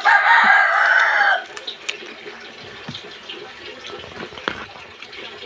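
A rooster crows once, loud, for about a second and a half at the start. After it come light clicks and crackles of crab shell being picked apart by hand.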